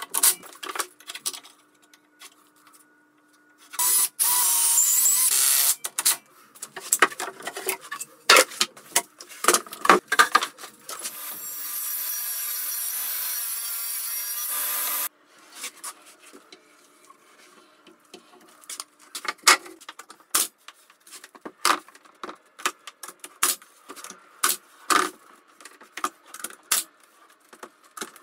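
Woodworking power tools: a cordless drill driving screws in short runs near the start, then a table saw cutting sheet material in a steady run that cuts off suddenly, then a string of sharp clicks and knocks.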